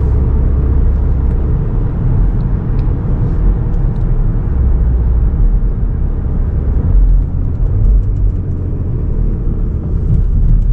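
Cupra Formentor 310 heard from inside the cabin at speed: a loud, steady low rumble of engine, tyres and wind.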